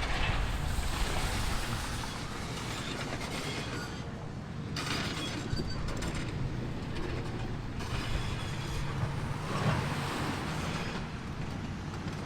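Heavy demolition machinery rumbling steadily, with stretches of noisy grinding and scraping that come and go every second or two.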